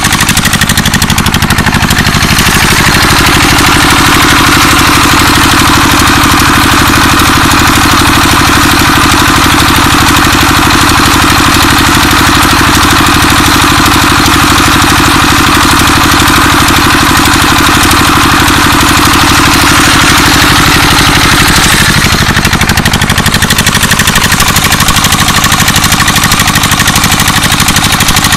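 Single-cylinder diesel tube-well engine running steadily with a rapid, even beat while driving a water pump. From about three seconds in to about twenty-two seconds in a steadier hum sits over the beat.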